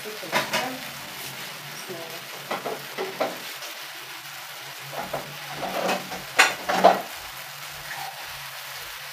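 Onion, tomato and masala sauce sizzling in a frying pan while it is stirred, the utensil scraping and knocking against the pan several times, loudest twice near seven seconds in. A low steady hum runs underneath.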